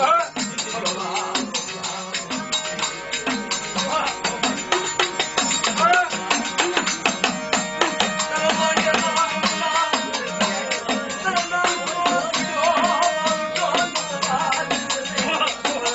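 Gujarati folk music: fast, steady percussion with a wavering melody line over it.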